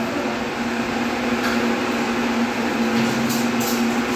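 A steady low machine hum with a couple of faint metallic clinks about a second and a half and three seconds in.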